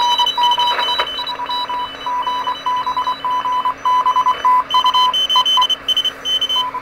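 Morse code (CW) received on a Heathkit HR10B receiver on the 40-meter band: F5IN's reply of thanks and 73, keyed as dots and dashes at one steady beep pitch over band hiss. Fainter Morse signals from other stations beep at higher pitches behind it.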